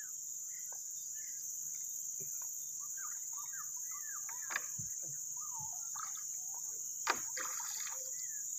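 Steady high-pitched drone of insects, with many short bird chirps over it and two sharp knocks, one about halfway and one near the end.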